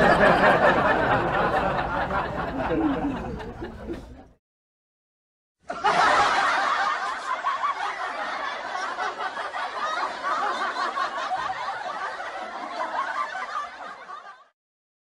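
Laughter in two stretches: the first fades out about four seconds in, and after a gap of dead silence a second one runs for about nine seconds and cuts off abruptly near the end.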